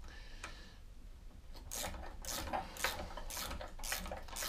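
A hand tool worked quickly back and forth on a long-fitted, stiff fastener on a lawnmower deck, making a run of short rasping strokes, several a second, that start about a second and a half in.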